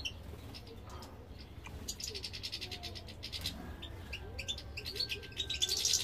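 European goldfinches chirping and twittering: short high-pitched calls, with a fast run of chirps about two seconds in and louder twittering near the end.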